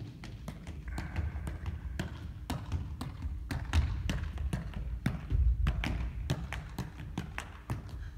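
A football being juggled with the feet: a run of quick, irregular taps as the foot strikes the ball, about two or three a second, over a steady low rumble.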